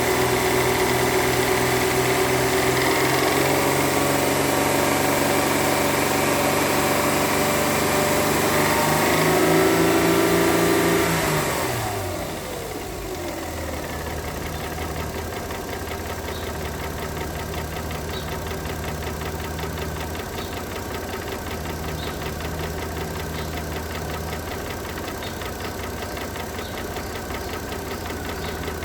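Mercedes-Benz W211 3.5-litre V6 engine held at raised revs, which rise a little and then drop back to idle about eleven seconds in. It then idles steadily with a regular knock, the engine knocking that the owner is trying to trace.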